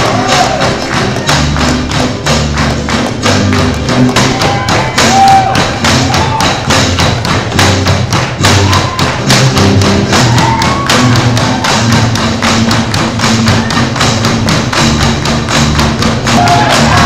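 Tinikling bamboo poles clacking together and knocking on a wooden floor in a steady rhythm, over loud music.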